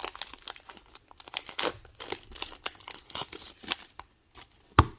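Foil wrapper of a Digimon Card Game booster pack crinkling and tearing as it is opened by hand, with papery rustling as the cards are slid out. One sharp tap comes near the end.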